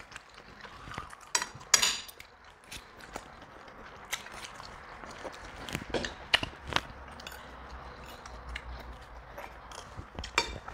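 Forks clicking and scraping on plates of noodles, with eating sounds between. The loudest clicks come about two seconds in and again around six to seven seconds in.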